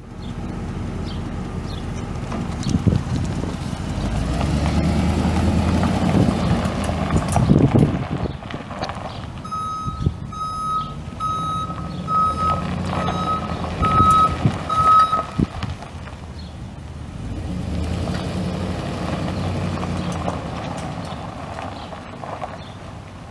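A 2003 Chevrolet Silverado 2500HD's 6.0-litre V8 gas engine running as the truck is driven, its sound swelling and easing off. Partway through, a backup alarm sounds seven steady beeps about 0.8 s apart while the truck reverses.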